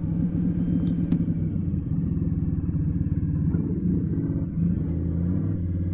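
Indian Scout Sixty's V-twin engine running steadily while riding, its note shifting briefly about three-quarters of the way through, with a single sharp click about a second in.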